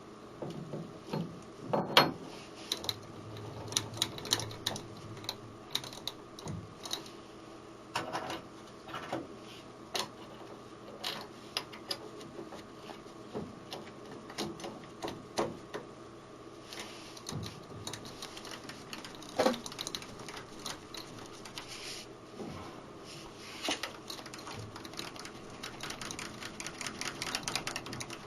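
Irregular metal clicks and knocks as a lathe's inner tool post is fitted by hand, with a few louder clanks about 2 seconds in and again later.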